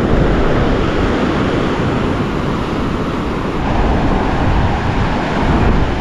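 Ocean surf breaking and washing over a shallow beach in a steady rush, with wind rumbling on the microphone.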